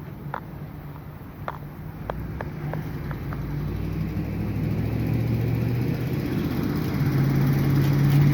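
A motor vehicle's engine running steadily and growing gradually louder, with a few light clicks in the first three seconds.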